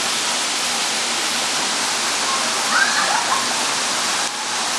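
Waterfall rushing in a steady, dense hiss of falling water, with a few short rising-and-falling chirps about three seconds in.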